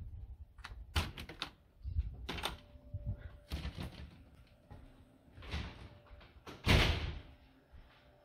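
Glass storm door and front door of a cabin being opened and shut: a cluster of latch clicks and rattles about a second in and again around two seconds, then several hissing scrapes of the doors swinging, the loudest near seven seconds.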